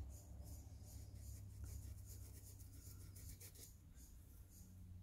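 Small paintbrush stroking across canvas: a run of quick, faint, scratchy strokes that stop near the end.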